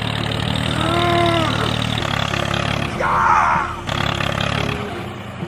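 Tractor engine running steadily with a low, even pulse. About a second in there is a short call that glides up and down, and around three seconds in a brighter warbling sound.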